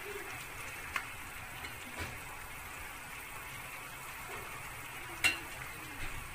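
Stew being spooned from a frying pan into a ceramic tagine dish: a few light knocks of the spoon against pan and dish, the sharpest about five seconds in, over a steady low hiss of the simmering stew.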